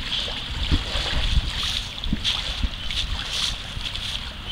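Water splashing and sloshing against an inflatable water-walking ball as the person inside moves it across the river surface, with wind rumbling on the microphone.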